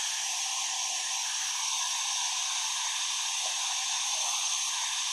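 Compressed air hissing steadily as it is fed in through the spark plug hole of a Husqvarna 130BT two-stroke engine and blows out the exhaust port, keeping loosened carbon from falling into the cylinder while the port is scraped clean.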